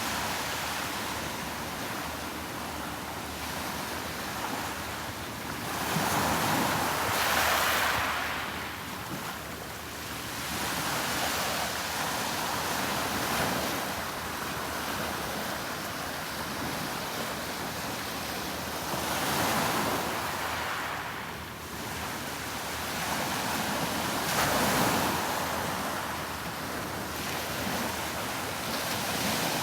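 Sea waves breaking and washing up a beach: a steady rush of surf that swells every several seconds as each wave comes in.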